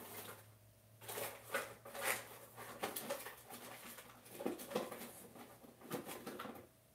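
Someone rummaging through art supplies in search of a tube of paint: irregular clicks, knocks and rustles as objects are picked up and moved about.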